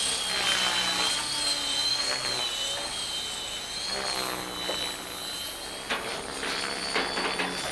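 Rave ENV electric radio-controlled helicopter flying aerobatics on 710 mm flybarless main blades: a steady high motor and drivetrain whine over rotor blade noise, its pitch wavering up and down as the helicopter manoeuvres.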